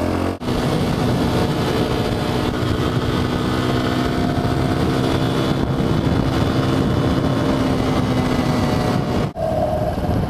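Single-cylinder engine of a 2009 Q-Link XF200 supermoto running on the move, with wind rushing over the microphone. The engine sound holds fairly steady, dropping away briefly about half a second in and again near the end.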